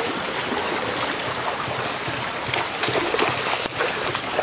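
Muddy floodwater rushing in a fast, shallow torrent over paved concrete: a steady rush of flowing water.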